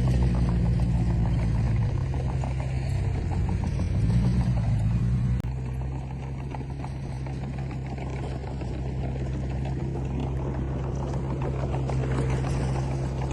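Komatsu D20P bulldozer's diesel engine running under load, its pitch rising and falling over the first five seconds. It changes suddenly and drops a little in level about five seconds in, then runs steadily.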